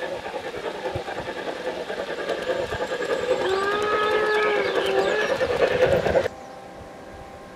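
Garden-scale model train running along its track with a steady rattling hum, and a whistle sounding for about two seconds a little over three seconds in. The sound cuts off suddenly about six seconds in, leaving a quieter steady hum.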